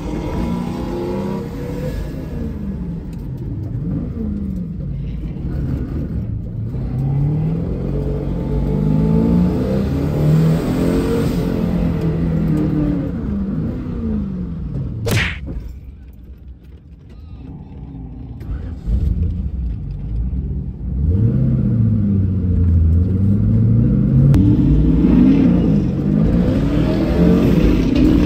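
A car engine accelerating hard and slowing again, its pitch rising and falling repeatedly. A single sharp crack comes about halfway through, followed by a short quieter lull before the engine picks up again.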